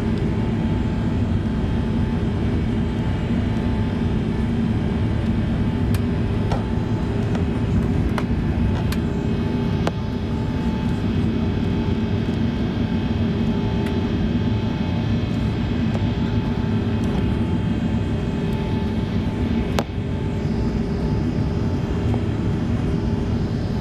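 Airbus A380's Engine Alliance GP7200 turbofans at climb power, heard inside the cabin over the wing during the climb-out: a steady, dense engine and airflow noise, heaviest in the low end, with faint steady tones. A few faint clicks occur, and the level drops slightly about ten seconds in.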